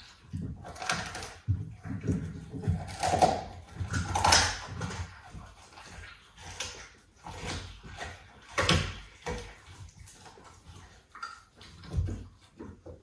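A big cat chewing and gnawing on a lump of raw meat, with irregular wet bursts of biting and tearing several times a second, some louder than others.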